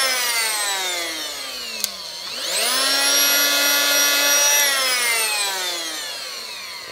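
Oscillating multi-tool with a sanding pad: its motor winds down, is switched back on about two seconds in and runs briefly at full speed, then is switched off and winds down again through the rest.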